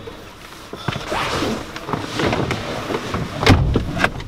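Rustling and small knocks of a person getting into a car's driver seat, with one loud thump about three and a half seconds in.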